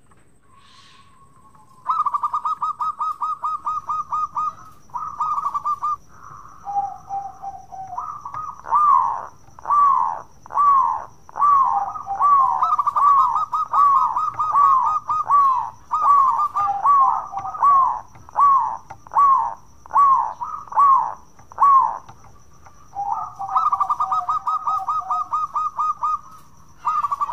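Zebra dove (perkutut) singing: a rapid trill of notes, then a run of about fourteen short coos roughly one a second, each arching up and falling in pitch, with the rapid trill coming back near the end.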